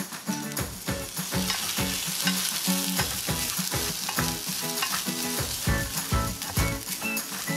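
Uncooked jasmine rice sizzling in hot oil with scallion and garlic in a small pot, stirred with a wooden spoon to coat the grains before the water goes in. Background music with a steady beat plays underneath.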